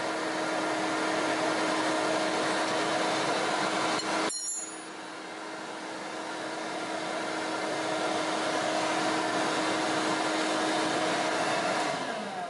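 Pellet-stove ash vacuum running with a steady hum, pulling a vacuum on the engine crankcase so no oil pours out while the drain plug is out; a sharp metallic click sounds about four seconds in. Near the end the vacuum is switched off and its motor winds down.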